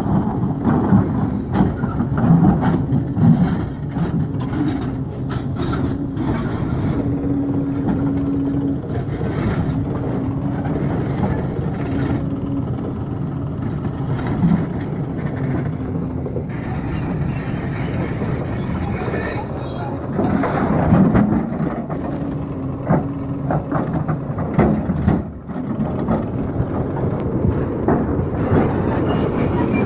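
Diesel engine of a large JCB tracked excavator running under load as it shifts boulders, with rocks knocking and clattering against the bucket and each other, and a low hum that comes and goes.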